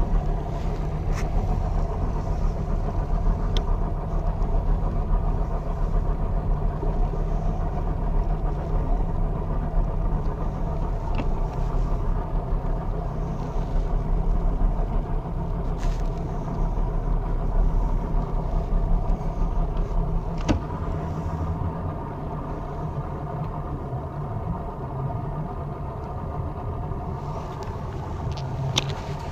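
Bass boat's outboard motor running under way, a steady low drone with wind and water noise over the hull. The level falls off right at the end as the boat slows.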